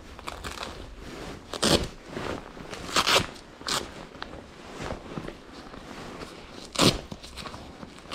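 Leather motorcycle gloves and textile jacket sleeves rustling and scraping close up as the gloves are worked off, with several short, sharp rasps.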